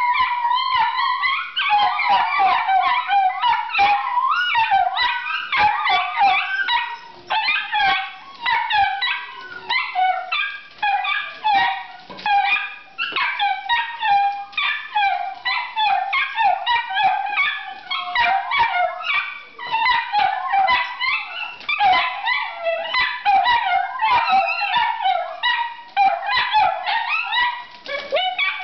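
Several Italian Greyhounds howling together in overlapping, excited 'singing', with yips and whines mixed in. Short sharp clicks of their claws on the tile floor run through it.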